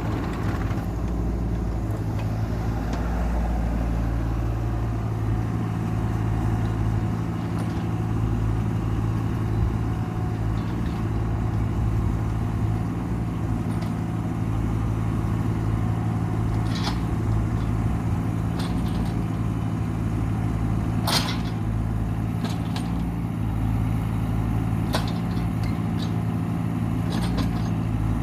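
Diesel engine of heavy land-clearing equipment running steadily at a constant pitch, with a few sharp metallic clanks.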